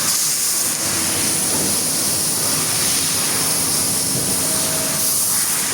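Sheet-metal laser cutting machine running: a steady loud hiss with a bright high edge and a faint low hum under it.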